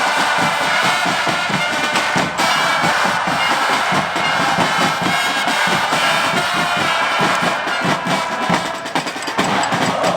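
Football supporters' drums beating a fast, steady rhythm under a stadium crowd singing a chant.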